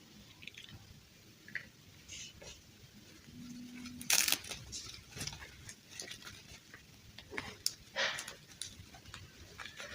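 Small clicks, taps and rustles of hands handling small objects, with a louder rustle or scrape about four seconds in and another about eight seconds in.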